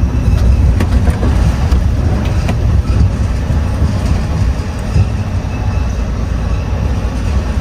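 Scania V8 truck on the move: a steady, heavy low rumble of engine and road noise, with a few light clicks and rattles over it.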